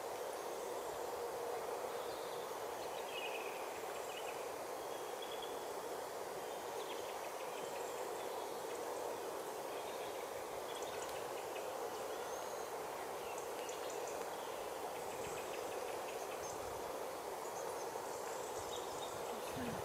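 Steady outdoor background noise, with faint short high chirps and ticks scattered over it.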